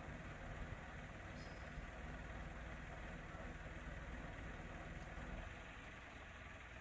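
Isuzu garbage compactor truck's engine idling with a steady low rumble, easing off slightly near the end.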